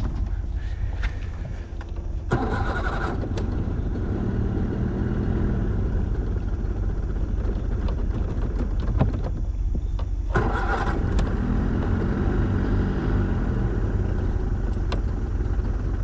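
Pull-start outboard motor being cranked with its pull cord, two pulls about two and ten seconds in, the engine sputtering and trying to catch after each without settling into a clean idle, which the owners take for a flooded engine.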